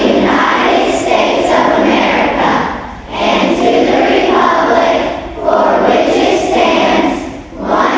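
A group of elementary-school children singing a song together, in phrases with short breaks between them.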